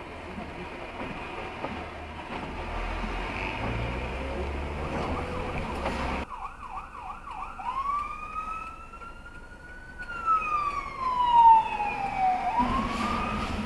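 Steady road noise from inside a car, then an abrupt cut to an electronic emergency-vehicle siren, most likely a Montreal fire truck's. The siren warbles quickly for about a second, then wails slowly up in pitch and back down, and begins to rise again near the end.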